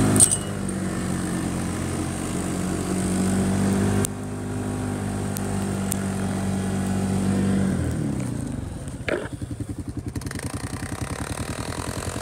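A side-by-side UTV engine runs at a steady pitch while pushing through deep snow. About eight seconds in it winds down to a rapid, pulsing idle, with a short knock soon after.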